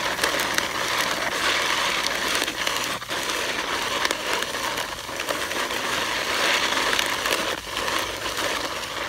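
Wide plastic snow pusher shovel scraping steadily along pavement as it pushes a load of snow, with the snow crunching.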